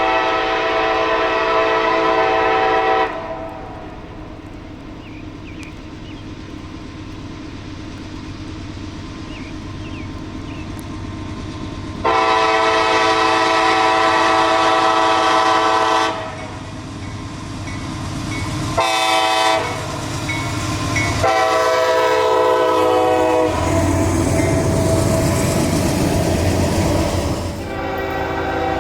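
CSX diesel locomotive sounding its multi-chime air horn in the grade-crossing signal: long, long, short, long. Under the horn the diesel engine rumble grows as the locomotive approaches, loudest just after the last long blast as it passes. Another horn blast starts near the end.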